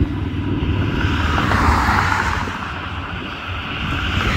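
Outdoor vehicle noise: a steady low rumble with a hiss that swells about two seconds in, dips, then rises again near the end.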